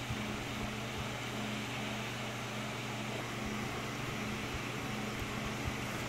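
Electric floor fan running: a steady whir with a low hum under it.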